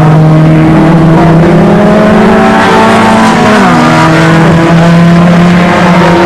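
Several rallycross saloon cars' engines running hard at racing speed, their engine notes overlapping. About three and a half seconds in, one engine note drops in pitch.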